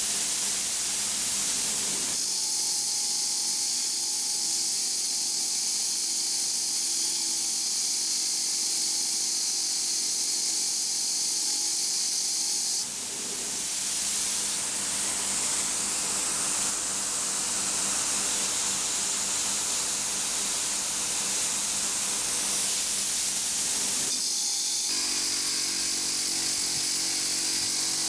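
Villager VLN355 bench grinder running, its wire wheel brushing rust off an old steel file: a steady motor hum under a loud hissing scratch of wire bristles on metal. The sound changes abruptly in tone a few times.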